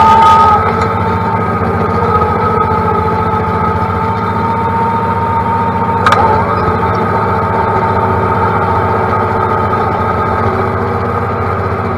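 John Deere loader tractor's diesel engine running steadily, with a steady high whine over the engine note. It eases slightly about half a second in, and there is one brief sharp knock about halfway through.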